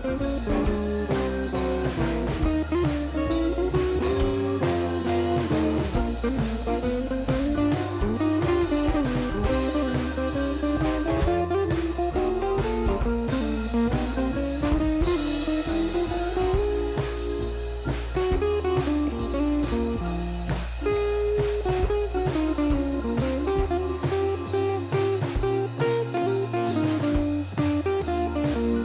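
Instrumental background music: a guitar melody over bass and a steady drum beat.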